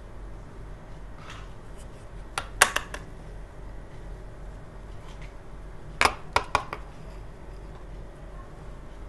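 Hard plastic toy doctor-kit pieces being set down on a table: a short cluster of sharp clicks and clacks about two and a half seconds in, and another about six seconds in.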